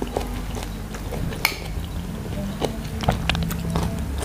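Metal spoon and fork clinking and scraping on a ceramic plate as rice is scooped, a few sharp clinks, with chewing, over soft background music.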